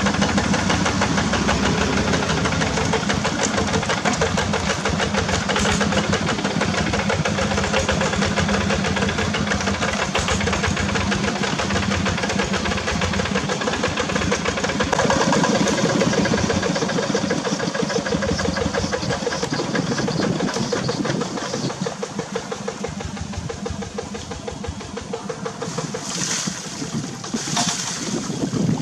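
Walking tractor's single-cylinder diesel engine running steadily with a rapid chugging beat. Near the end it grows quieter and a few short hissing bursts come through.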